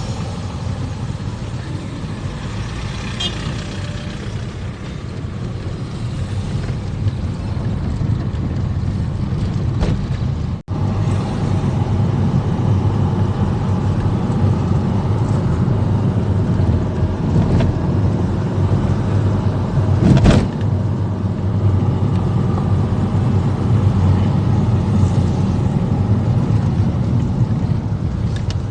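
Road noise of a car driving over scraped, milled asphalt: a steady low rumble, which the driver blames for the noise in the recording. The sound drops out briefly about ten seconds in, and there is a short knock about twenty seconds in.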